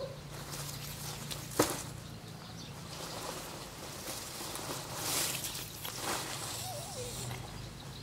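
Harvested sugarcane stalks being handled and shifted on the ground: dry leaves rustling and canes knocking together, with one sharp knock about one and a half seconds in.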